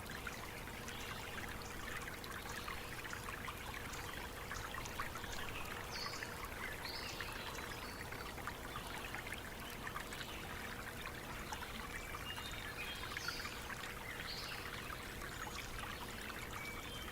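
Stream water trickling and splashing steadily, with a few short, faint, high bird chirps now and then.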